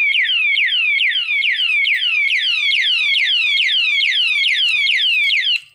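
Motion-sensor alarm padlock sounding its electronic siren, set off by the lock being moved: a loud, rapidly repeating falling sweep, about three to four sweeps a second. It cuts off suddenly near the end.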